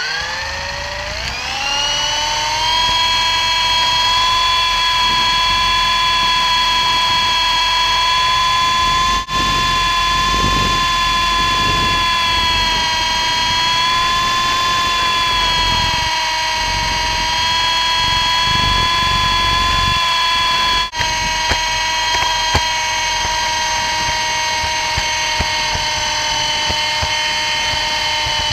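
Electric motors and gears of an MJX F45 RC helicopter spooling up to a high whine over the first couple of seconds, then holding a steady pitch through the flight, heard from on board. The sound cuts out for an instant twice, once before the middle and once about two-thirds through.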